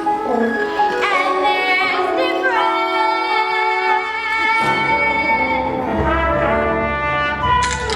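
Orchestral show music with brass in the lead: held trombone and trumpet notes over the orchestra, with low bass notes coming in about halfway.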